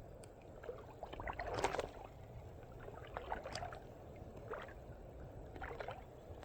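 Faint splashing and sloshing of water in a few short bursts about a second apart, with small clicks in between.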